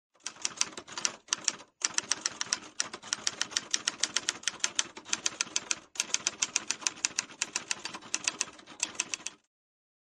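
Manual typewriter typing: a fast, even run of key strikes, about six a second, with a few brief pauses, stopping a little before the end.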